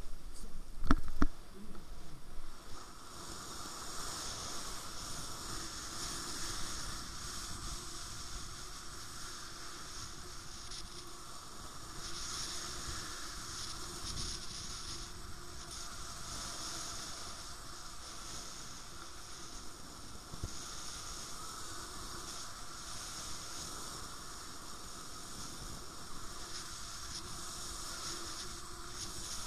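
Air rushing past the camera of a paraglider in flight, a steady hiss. In the first couple of seconds a few loud thumps come from the launch run on snow.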